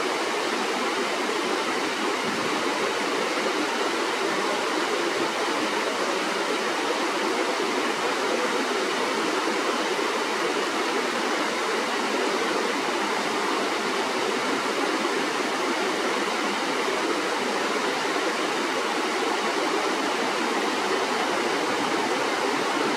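Shallow stream flowing steadily, a constant even rush of water with no change in level.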